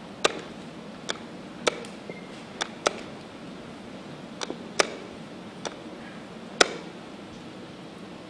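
Wooden chess pieces clacking down on the board and chess clock buttons being pressed during fast rapid play: about ten sharp clicks at irregular intervals, sometimes two in quick succession, the loudest a little past the middle.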